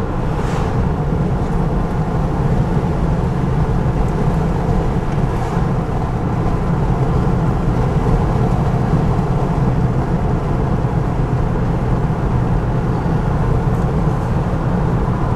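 Steady road and engine noise inside a moving car's cabin, with a brief rush of noise about half a second in as an oncoming pickup truck passes.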